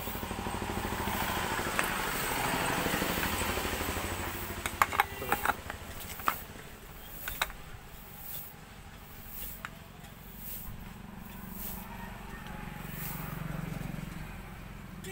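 A vehicle engine runs nearby, swelling over the first few seconds and then fading. Around five to seven seconds in come sharp metal clinks as drum brake parts, the brake shoe and backing plate, are handled.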